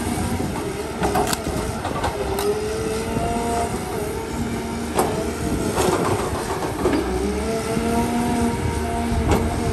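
Cat tracked hydraulic excavator running under working load, the whine of its hydraulics rising and falling in pitch as the boom moves. Several sharp cracks and clanks come through it as the machine works into the brush.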